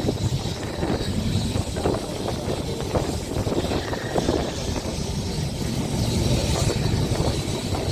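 Open-top Boat-class tram 600 running along the track, heard on board: a steady, low running noise of motors and wheels on rails.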